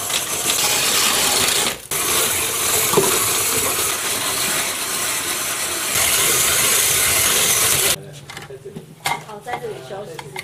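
Old hand-cranked ice shaving machine grinding a block of ice: a loud, steady rasping scrape from the blade as the flywheel is turned. About eight seconds in it stops, and quieter scattered clicks and clinks follow.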